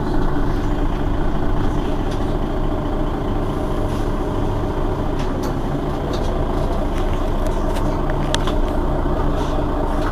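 Mercedes-Benz Citaro facelift city bus's rear-mounted engine idling steadily while the bus stands still, with a few light clicks in the second half.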